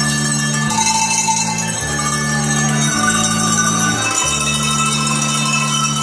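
A set of tuned cowbells of graded sizes, hand-rung by two players, playing a melody over sustained accompanying chords that change about once a second.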